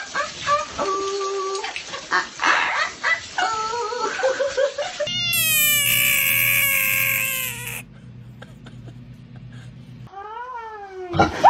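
Parrots squawking under splashing running water, then a cut to a bullfrog giving a long, loud, cat-like scream that slides down in pitch and then holds for about three seconds, the distress call a frog makes when it is grabbed. A short rising-and-falling animal call comes near the end.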